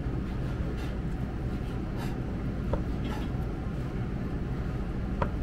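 Steady low hum of kitchen machinery, with a few faint clicks.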